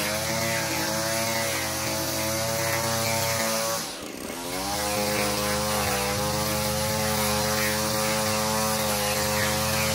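Handheld petrol line trimmer running at high revs while edging the lawn along a concrete path, its engine note steady. About four seconds in the engine briefly drops, then revs back up.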